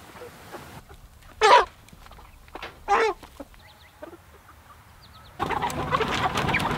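Red broiler chickens calling: two loud, short squawks a second and a half apart, then, about a second and a half before the end, a sudden loud burst of many birds squawking and clucking at once.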